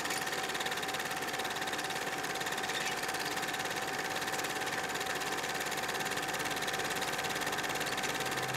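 A small machine running steadily with a rapid, even clatter and a steady whine.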